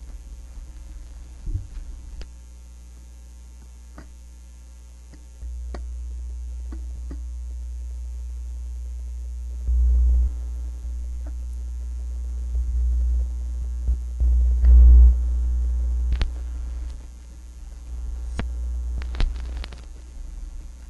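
Low mains hum from the playback chain, with scattered clicks, in the gap between tracks of an LP transfer. The hum steps up about five seconds in and swells briefly twice, near the middle and again a few seconds later.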